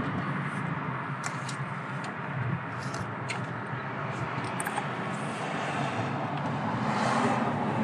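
Steady low outdoor rumble, with a few short clicks and taps from hands working a rubber hose in the engine bay to thread in a spark plug.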